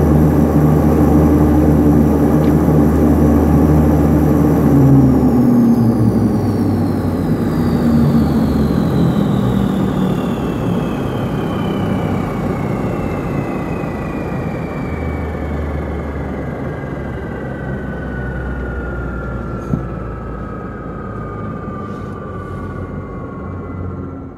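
Antonov An-24's Ivchenko AI-24 turboprop engine shutting down on the ground, heard from inside the cabin. It runs steadily for about five seconds. Then a whine falls slowly in pitch and the rumble eases as the propeller winds down.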